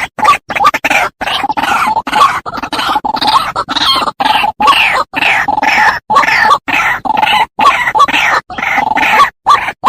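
White-breasted waterhen calling: a fast, unbroken run of short, repeated call notes, about three a second, some falling in pitch.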